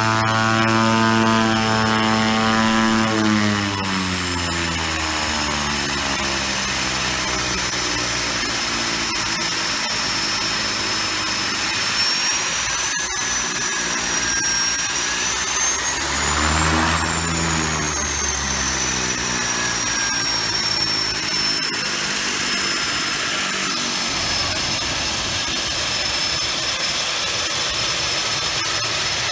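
Pratt & Whitney Canada PT6A-28 turboprop running on the ground with its cowlings off, turning its propeller: a steady high turbine whine over the propeller's beat. The pitch drops about three seconds in as power comes back, rises and falls once more around the middle, then holds steady at a lower setting.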